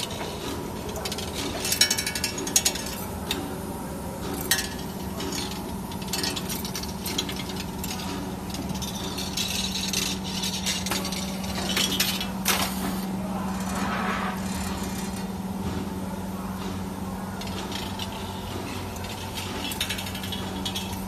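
CNC 3D wire bending machine running as it forms car seat spring wire: a steady electric hum under irregular metallic clicks and clanks. The loudest clanks come about two seconds in.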